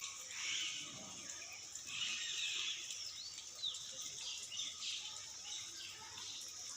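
Birds chirping in short repeated calls over a steady high-pitched background drone.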